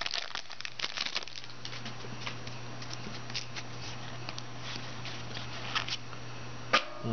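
Crinkling of a foil trading-card pack wrapper being opened and handled, densest in the first second or so, then sparser crackles as the cards are handled, with a sharp click near the end. A low steady hum runs underneath.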